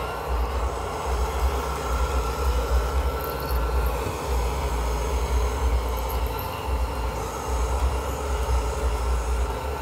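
Small robot floor cleaner running: a steady motor whir over a low rumble from its wheels and brushes rolling across a hard tile floor.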